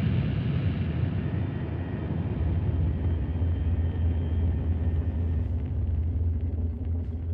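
Dark ambient noise drone: a dense, steady low rumble, with faint thin tones drifting above it midway through.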